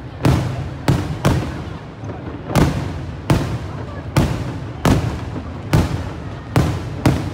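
Aerial firework shells bursting overhead in quick succession: about ten sharp bangs at uneven intervals, roughly one to two a second, each followed by a brief rumbling tail.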